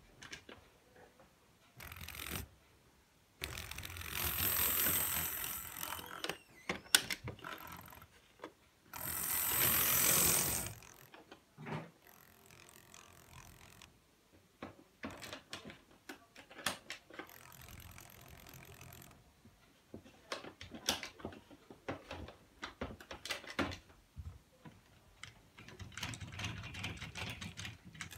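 The bare chassis of a Hornby Pug 0-4-0 model locomotive, its small open-frame electric motor and worm gear whirring in a few short runs of several seconds each. Scattered clicks and rattles of the mechanism and wheels come between the runs.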